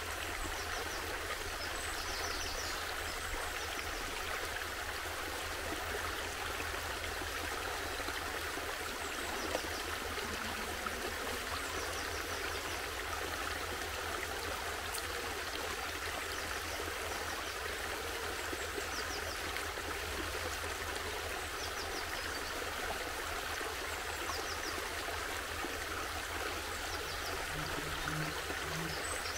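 Small muddy stream of snowmelt running over gravel and spilling down a low step in its bed: a steady splashing flow.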